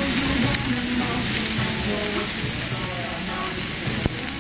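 Thin slices of fatty meat sizzling on a hot Korean barbecue griddle as they are laid on with tongs: a steady, dense hiss, with a sharp click about four seconds in.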